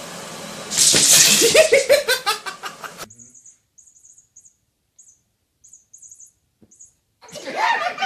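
People laughing loudly in bursts for about two seconds, then a stretch of near quiet with faint high chirps, then another burst of laughter near the end.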